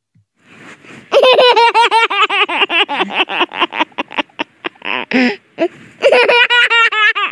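A baby laughing: a long run of quick high-pitched giggles, several a second, that trails off around four seconds in, a breath, then a second burst of giggling.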